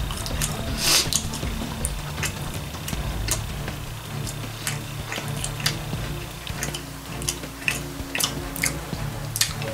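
Close-miked chewing, with wet mouth clicks and smacks every fraction of a second, as a person eats a soft fish sandwich. Quiet background music runs underneath.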